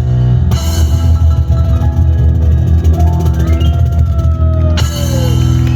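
Piano and cajon playing together: piano chords with sustained deep bass notes over a fast, busy percussion pattern.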